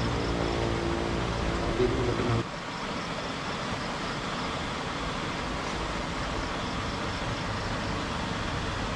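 A steady low engine-like hum that stops abruptly about two and a half seconds in, leaving a steady background hiss.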